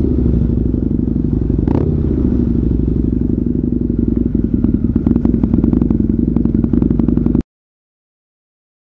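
Motorcycle engine running steadily at low speed, heard from the rider's position, with a run of faint rattling clicks in the last few seconds. The sound cuts off abruptly to complete silence about seven and a half seconds in.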